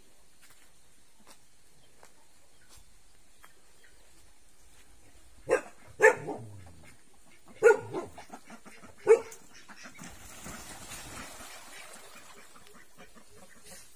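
A dog barks four times over about four seconds, starting about halfway through.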